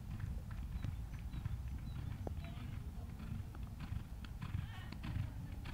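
Horse's hooves cantering on a sand arena surface: repeated dull hoofbeats over a steady low rumble.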